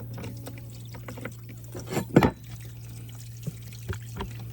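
Water draining and trickling out of an Intex saltwater chlorinator's cell housing after the water has been shut off, over a steady low hum, with one sharp knock about two seconds in.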